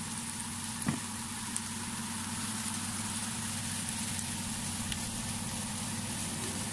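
Fan-assisted electric oven running with a steady hum, its fan whirring, with a light click about a second in.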